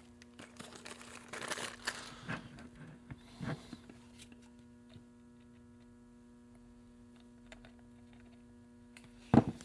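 Handling noise of a plastic RC truck body and tools, with rustles and light clicks over the first few seconds. After that a steady electrical hum runs on, and one sharp knock comes near the end.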